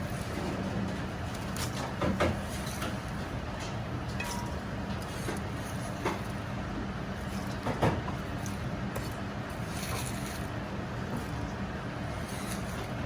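Steady background roar of a commercial Chinese kitchen, with scattered short clinks and knocks of utensils, about four over the stretch.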